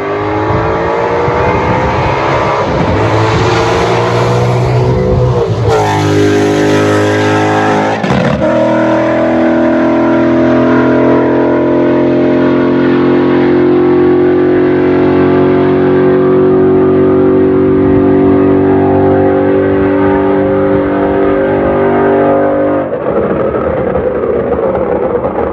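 Ford Mustang GT's Coyote 5.0 V8 running through long-tube headers, an X and H pipe and no mufflers or resonators, accelerating hard with pitch rising, shifting up about six and again about eight seconds in. It then holds a steady loud cruise until the throttle is lifted about 23 seconds in.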